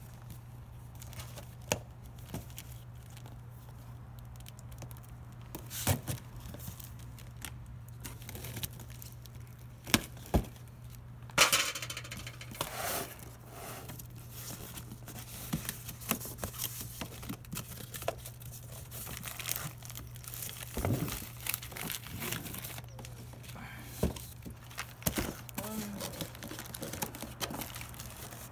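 Cardboard shipping box being opened by hand: packing tape peeled and ripped off, cardboard flaps and packing paper crinkling, with scattered sharp taps and knocks against the box. A longer tearing rasp comes about a third of the way in, over a steady low hum.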